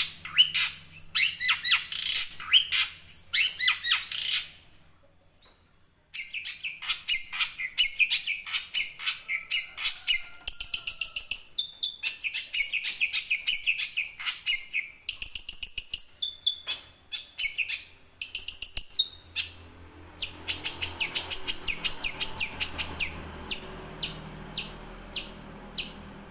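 Young long-tailed shrike singing a continuous, rapid, chattering song of quick high notes, with a short break about five seconds in. Near the end the song thins into a run of separate sharp notes, about two or three a second.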